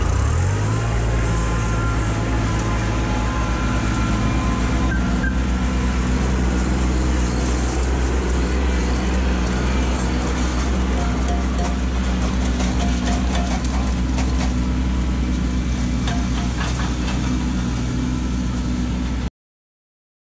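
Compact diesel tractor engine running steadily close by at a constant pitch, cutting off suddenly near the end.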